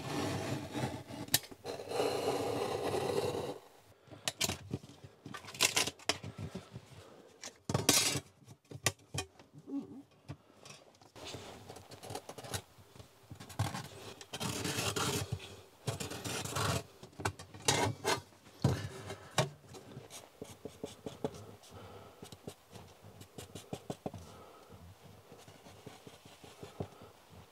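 Intermittent scraping, rubbing and light clicking as a thin metal heater mounting plate is handled and shifted on vinyl flooring and traced around with a marker pen. The sounds come in uneven bursts, with quieter stretches of small scratchy ticks in the second half.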